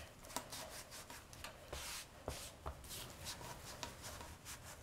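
Hands rolling yeast dough into long strands on a floured countertop: faint, irregular rubbing and swishing, with a few light clicks.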